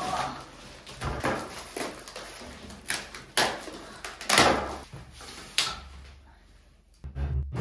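A string of irregular knocks and clatters, like a door, drawer or hard object being moved and set down, the loudest about four and a half seconds in.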